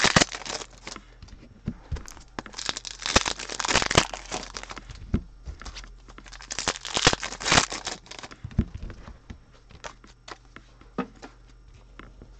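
Foil wrapper of a football trading-card pack being torn open and crinkled, in loud bursts over the first eight seconds or so. Sparser, quieter clicks and taps follow as the cards are handled.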